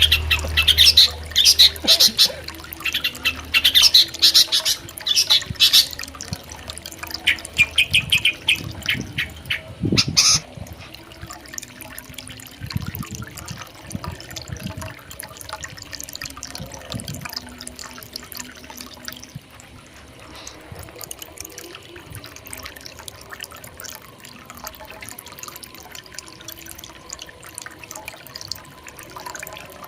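Long-tailed shrike giving loud, rapid, scratchy chattering calls in bursts for about the first ten seconds, over steady running river water. The water goes on alone after the calls stop.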